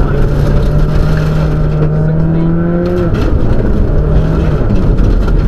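Cabin interior of a Subaru Impreza rally car driven hard on gravel: the turbocharged flat-four engine pulls with a slowly rising note, eases off about three seconds in, then picks up again briefly. Heavy rumble from tyres and stones on the gravel runs underneath.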